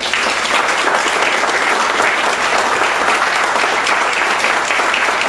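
Audience applauding after a song ends, coming in at full strength at once and holding steady.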